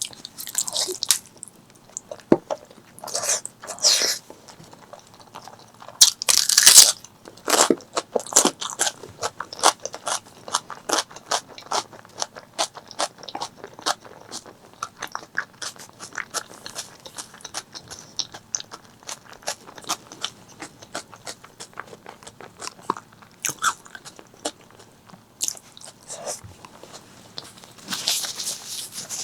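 Close-miked eating: crunchy bites, the loudest about six seconds in and again near the end, with steady chewing at about two chews a second through the middle.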